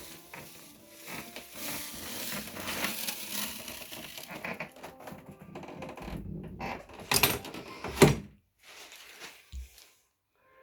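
Xiaomi WalkingPad R1 folding treadmill being unfolded: a rattling, scraping mechanical noise, then two loud clacks about a second apart near the end. This is the noise on unfolding that the owner reports as a fault.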